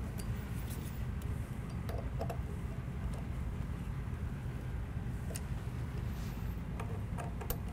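A steady low hum from the workshop background, with a few faint, short metallic clicks scattered through it: a hex-bit torque wrench turning the set screws on the side of a steel linear-guide carriage.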